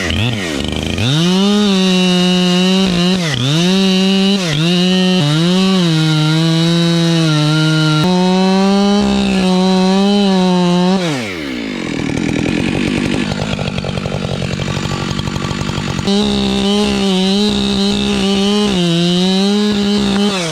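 Chainsaw at full throttle cutting through a tree trunk in the felling cut, its pitch dipping again and again as it bogs under load. Just past the middle it drops back to idle for several seconds, then revs up and cuts again.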